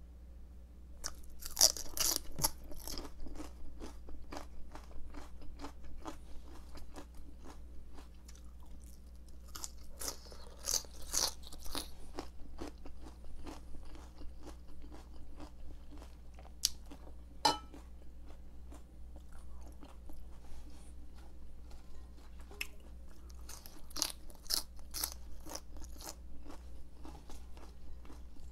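Close-miked crunching and chewing of raw cabbage, crisp crunches coming in clusters a couple of seconds in, around ten seconds in and near the end, with softer chewing and small mouth clicks between.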